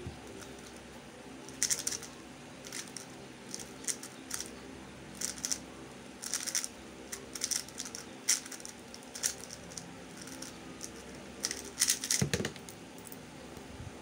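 MF3RS2 3x3 speed cube being turned fast in a speedsolve: plastic layers clicking in rapid irregular bursts, then a dull thump about twelve seconds in as the solved cube is put down on the table.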